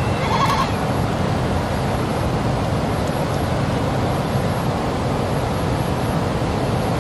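A steady, even rushing noise, with a short wavering animal bleat at the start lasting about half a second.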